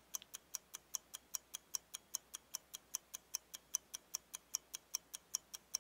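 Ticking-clock sound effect counting down the thinking time for a quiz question: fast, even ticks, about six a second.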